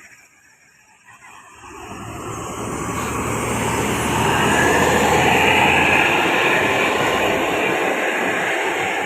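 A bus going past on the road, its engine rumble and tyre and wind noise building from about a second and a half in to a peak around the middle, staying loud as it passes. No horn is sounded.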